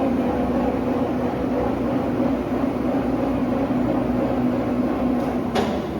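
Ransome welding positioner's tilt drive running steadily as the table tilts down, a loud hum with a steady low tone, which stops with a click about five and a half seconds in.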